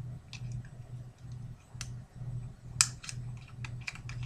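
Small clicks and snaps of fingers and scissors working at the plastic tag fastener on a small plastic ring, with one sharper snap just before three seconds in, over a low hum that pulses about three times a second.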